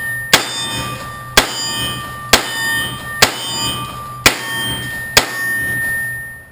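Smith & Wesson AirLite .357 Magnum revolver fired double action at a steady pace, six shots about a second apart. Each shot is followed by a ringing clang.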